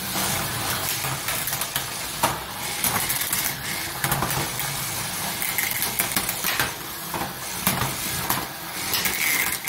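Small electric drive and weapon motors of Hexbug BattleBots toy robots whirring, with a faint steady whine, broken by sharp plastic clacks and knocks as the bots hit each other.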